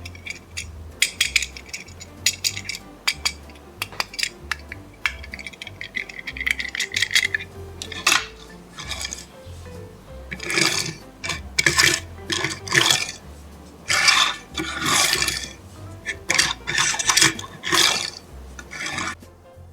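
Toy packaging being handled and opened: sharp plastic clicks and taps, then longer crinkling and rustling from about halfway through, over soft background music.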